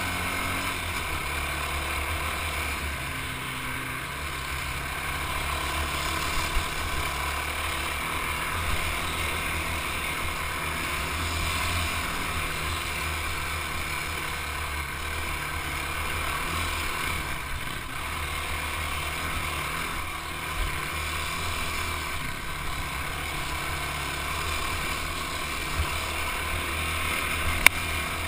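Sport ATV's engine running steadily as it rides a dirt trail, heard through an on-board camera with a low rumble on the microphone. A couple of brief sharp knocks come through, one a few seconds in and one near the end.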